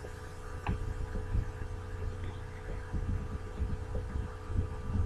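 Steady low hum and rumble of background noise, with a few faint clicks.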